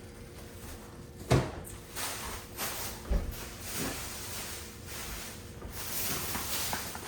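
Groceries being unpacked and handled: a sharp knock about a second in as something is set down, then softer knocks, a dull thump and light rustling.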